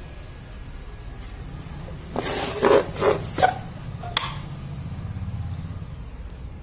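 Three or four short scraping, rustling noises in quick succession about two seconds in, then a single sharp click a second later, over a low steady hum.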